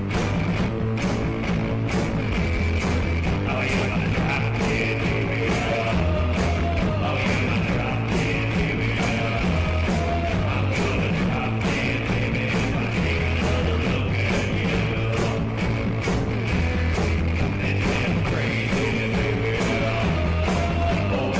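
Rock music soundtrack with a steady drum beat and a repeating bass line.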